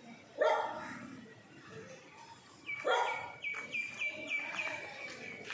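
A dog barking twice, about half a second in and again about three seconds in. From the second bark on, a high, rapidly repeated chirping runs alongside, about four notes a second.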